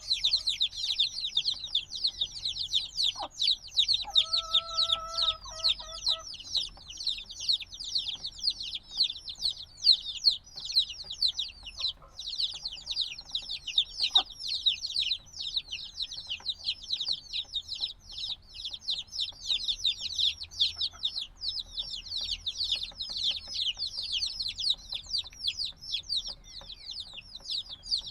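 A brood of chicks a few days old cheeping nonstop, many fast, overlapping high-pitched peeps. About four seconds in, a lower, steadier call sounds underneath for about two seconds.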